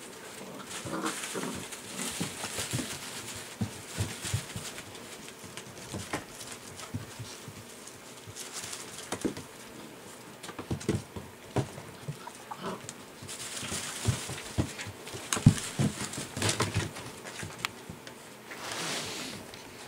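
Six-week-old golden retriever puppies moving about in wood-shavings bedding: rustling and scraping in the shavings with scattered small taps and scratches, in spells about a second in, in the second half, and again near the end.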